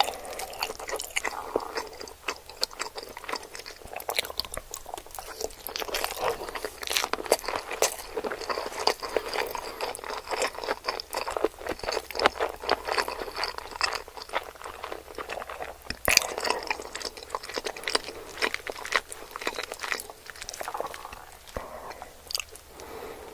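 A person chewing sushi, with frequent crisp crunches and sharp crackles.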